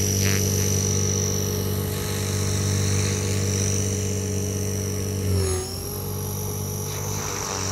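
Quick Japan EP8 v2 EX 500-size electric RC helicopter in flight: its main rotor and motor make a steady buzz with a high whine over it. About five seconds in, the pitch of the whole sound dips briefly and it becomes a little quieter.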